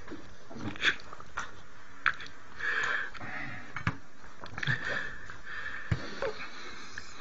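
Close breathy sniffs and wheezy breaths, with a few short sharp clicks scattered through.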